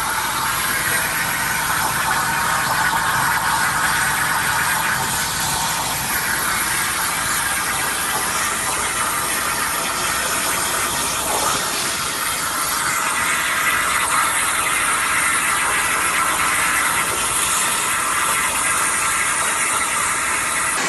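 CNC plasma cutter torch cutting metal, giving a steady hiss that holds at an even level throughout.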